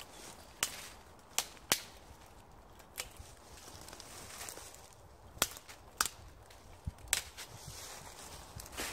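Bone-dry dead twigs and small sticks snapped by hand for kindling: about nine sharp cracks at irregular intervals.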